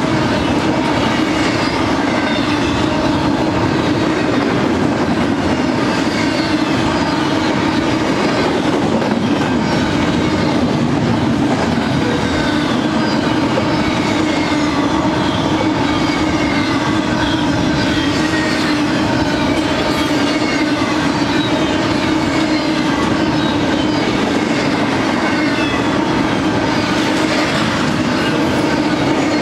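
Freight train of double-stack container well cars rolling past steadily, the wheels clattering over the rails, with short high squeals from the wheels scattered throughout.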